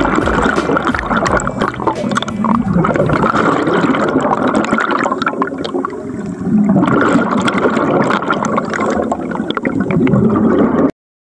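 Scuba diver's exhaled air bubbles rushing and gurgling underwater. The sound eases briefly about six seconds in, surges again, and cuts off suddenly near the end.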